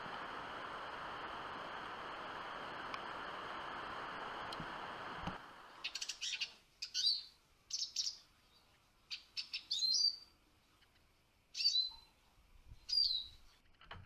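A steady hiss that cuts off about five seconds in, then Eurasian siskins calling: short, high, whistled calls that bend in pitch, several in a row a second or two apart.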